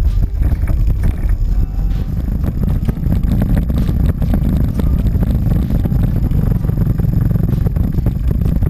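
Large V-twin touring motorcycles running at low speed on a gravel dirt track, a steady low engine rumble with many small knocks and crunches from the rough surface.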